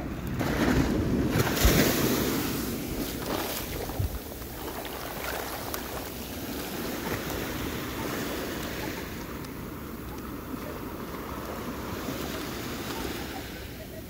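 Ocean surf: a wave breaks and swells loudest in the first few seconds, then settles into a steady wash, with wind rumbling on the microphone.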